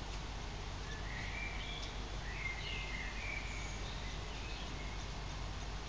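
A few short bird chirps and twitters about one to three and a half seconds in, over a steady background hiss and low hum.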